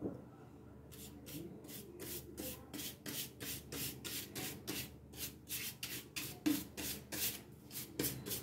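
Repeated back-and-forth rubbing strokes over a thin wooden cutout, about three a second, starting about a second in.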